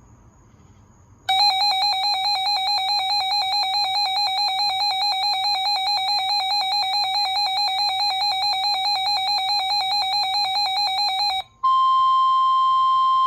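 Weather radio alert tones: a loud warbling electronic alarm for about ten seconds, then, after a brief break, a steady tone near 1 kHz for about two seconds. These tones open a NOAA Weather Radio severe thunderstorm warning broadcast.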